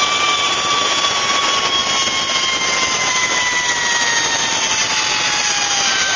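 Zip line trolley pulleys running along the steel cable: a steady whine whose pitch slowly falls as the ride slows toward the landing platform, over a loud rushing hiss of wind and cable noise.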